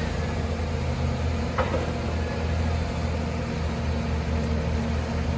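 An engine running steadily at a constant speed as a low hum, with one short click about one and a half seconds in.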